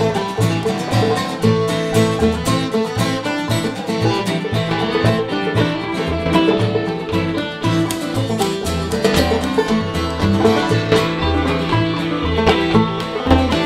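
Old-time string band playing an instrumental tune: fiddle over clawhammer banjo, strummed acoustic guitar and bass keeping a steady beat.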